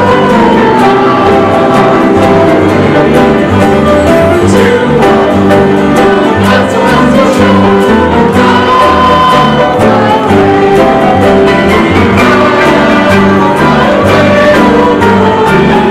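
Church congregation singing a hymn together, with instrumental accompaniment.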